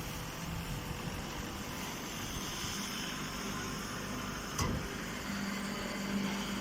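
Hay baler machinery running steadily, with a single sharp knock about two-thirds through and a steady hum joining in after it.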